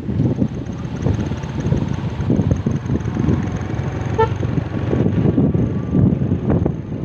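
Riding a motorcycle: wind buffeting the microphone over the engine and tyres on a concrete road, with a single short horn beep about four seconds in.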